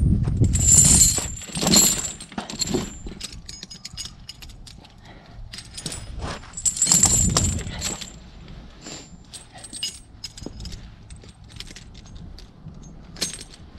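Steel tractor tire chains being handled and drawn up against a rear tire, their links clinking and rattling. The louder clattering comes at the start and again about seven seconds in, with scattered light clinks between.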